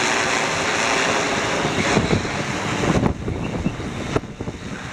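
Strong gusty wind buffeting the microphone, a dense rushing noise that eases about three seconds in and turns to uneven low buffets.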